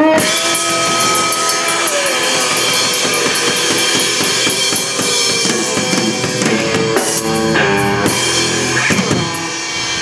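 Live rock band playing amplified: drum kit with busy cymbals and bass drum under electric guitar and bass guitar. The loudness eases off near the end as the song winds down.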